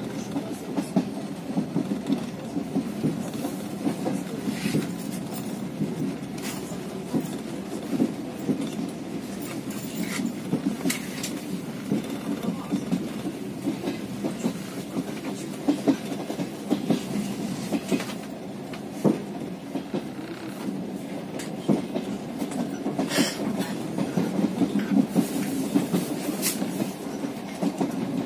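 Passenger train running along the track, heard from inside the carriage: a steady low rumble with irregular clacks of the wheels over the rail joints.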